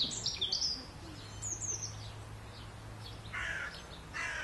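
Small birds chirping and trilling in quick high notes, then two short hoarse caws from a crow near the end.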